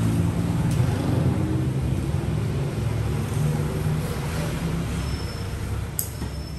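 A motor vehicle engine running close by with a low steady hum that slowly fades, street traffic, with two sharp knocks of a cleaver striking a wooden chopping block, about a second in and near the end.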